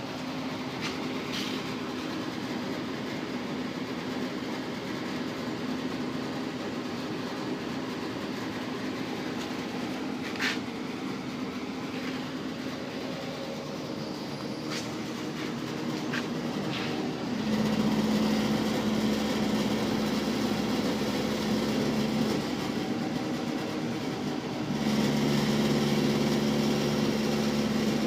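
Home furnace running with a steady hum, with a few sharp ticks in the first half. About two-thirds of the way through it gets louder, with a stronger low hum that briefly drops back and then returns.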